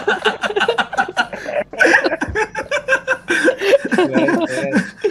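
A man laughing hard in quick repeated breaths, the laughter turning more voiced and sing-song about three seconds in.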